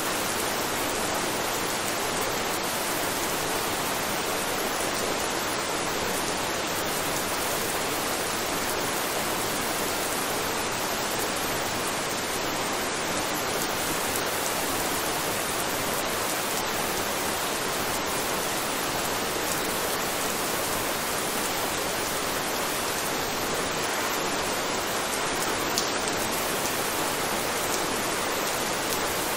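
Steady rain, an even hiss of rainfall on a surface.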